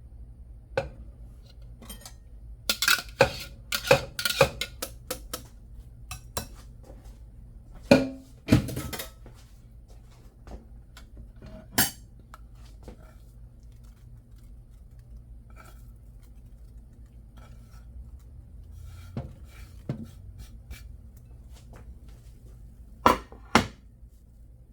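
Kitchen dishes and utensils clinking and knocking together in a string of short strikes, busiest in the first third and again briefly near the end, over a steady low hum.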